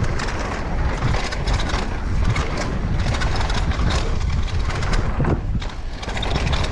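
Downhill mountain bike riding down a dirt trail: tyres crunching over dirt and stones and the bike rattling over bumps in a dense run of clicks and knocks, over a steady low rumble of wind on the microphone.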